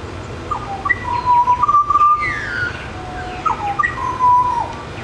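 Pied butcherbird singing: two phrases of pure whistled notes a little over a second apart, each with a long held note.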